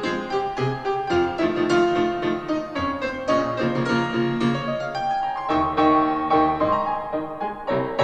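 Piano-led music with a repeating bass line, played back through a Bose SoundLink Mini Bluetooth speaker set to about 70% volume.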